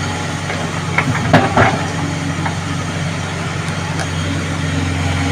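JCB excavator's diesel engine running steadily, with a short cluster of knocks about a second and a half in.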